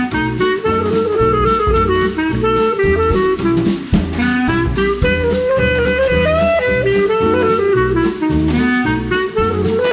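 Instrumental background music with a steady drum beat under a moving melody.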